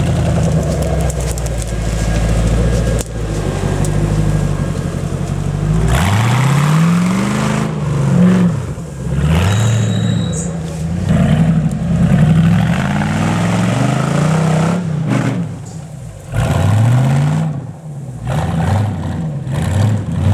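Off-road vehicle engine running at a steady low speed, then revved up and back down again and again from about six seconds in.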